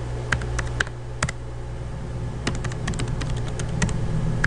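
Computer keyboard keys being typed in irregular clicks: a few keystrokes in the first second, then a quicker run of keys from about halfway through. A steady low hum lies underneath.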